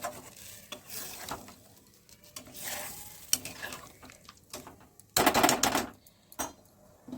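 A spoon stirring and scraping in a pan of curry on the stove, with scattered clicks against the pan and a longer, louder scrape about five seconds in.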